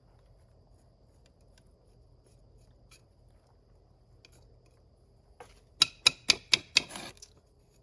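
Sharp knocks on a terracotta pot, five in quick succession near the end after a single lighter click, settling freshly added potting soil around a cactus's roots.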